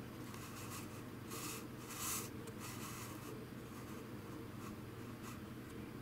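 Faint scraping and rubbing of plastic parts of a Miele vacuum cleaner's top housing being handled and pressed into place, in a few short scratches with the loudest about two seconds in, over a steady low hum.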